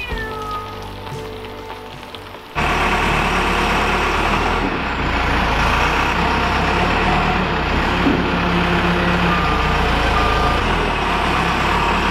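Telehandler's diesel engine running loud and steady as the machine drives up, cutting in suddenly about two and a half seconds in. Two short high beeps sound near the end.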